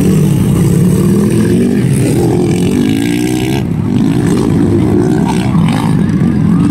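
Several motocross dirt-bike engines revving and easing off as they race round a dirt track, their pitch repeatedly rising and falling with the throttle.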